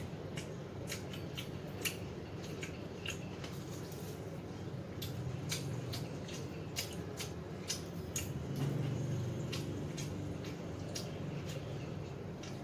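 Crunching and chewing of crispy fried chicken: irregular sharp crackles scattered throughout, over a low steady background.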